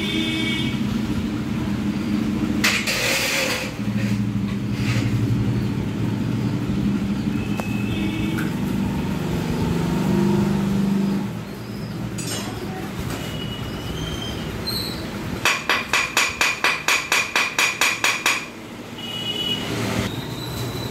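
Passing motor traffic: vehicle engines running, with short horn-like tones. Near the end comes a quick string of about a dozen beeps, roughly four a second.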